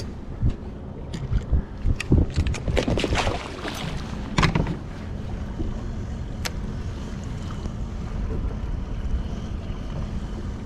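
Sharp knocks and rattles on a small fishing boat, with a brief rushing noise about three to four seconds in, settling into steady wind and water noise.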